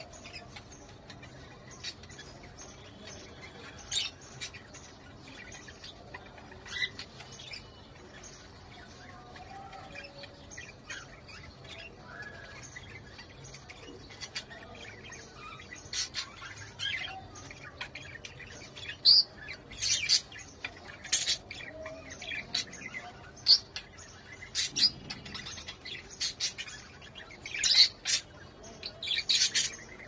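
English budgerigars chirping: short, sharp calls, a few spread out at first, then coming thick and fast from about halfway on.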